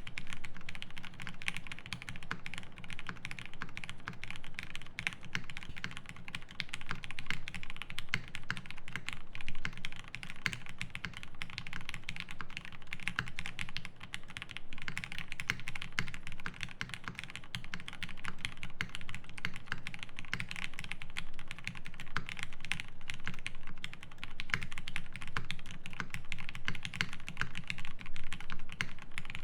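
Steady, fast typing on a Classy TKL mechanical keyboard fitted with lubed Cherry Hyperglide MX Black linear switches on a polycarbonate plate with case foam and GMK keycaps: a continuous run of quick key clacks, with a few louder strokes here and there.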